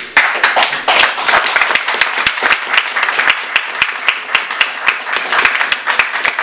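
Audience applauding: dense hand-clapping that breaks out suddenly and keeps going.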